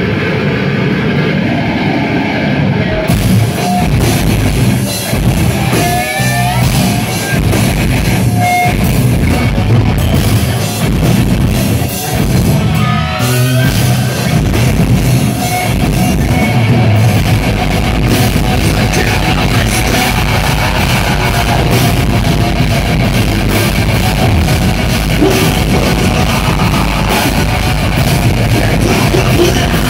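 Live metal band playing loud through a club PA: distorted electric guitars, bass and drum kit. The sound brightens about three seconds in.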